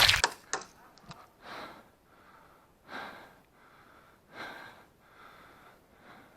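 A person breathing hard, with a soft breath about every second and a half and a few faint clicks near the start.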